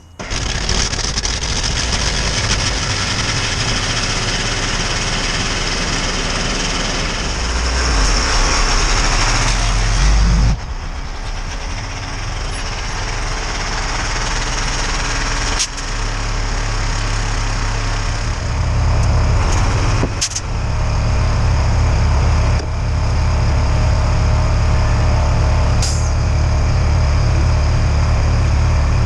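Forklift engine running under load, revving up about eight seconds in and dropping back suddenly a couple of seconds later, then revving up again from about eighteen seconds. A few sharp knocks come between.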